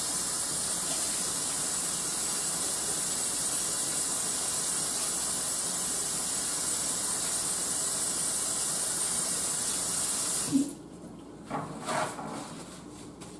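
Kitchen sink faucet running in a steady stream while hands are washed under it, shut off suddenly about ten and a half seconds in.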